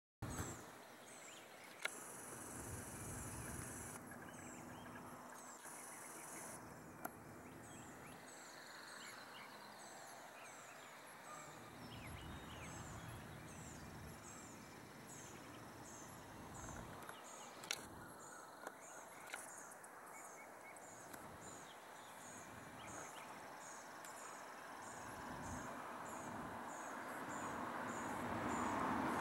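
Faint outdoor dawn ambience: a steady run of short, high chirps repeating throughout over a low, distant rumble, with a few sharp clicks. A broad rush of noise swells near the end.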